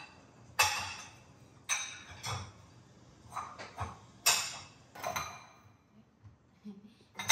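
Bowls and dishes clinking against each other and the rack as they are set into a dishwasher: about nine sharp, ringing clinks at irregular intervals.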